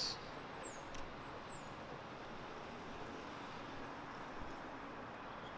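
Steady outdoor street ambience: the even hiss of distant traffic. Two faint, high, falling chirps come in the first two seconds.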